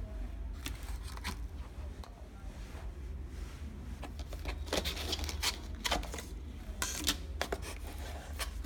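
Cardboard box and plastic packaging handled while unpacking a mobile phone: scattered rustles and clicks, busier in the second half, over a steady low hum.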